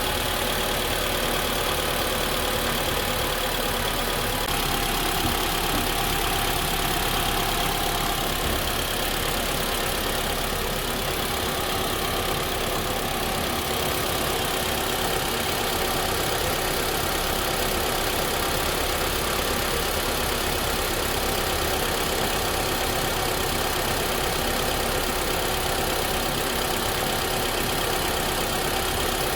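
2015 Mitsubishi Lancer's four-cylinder engine idling steadily.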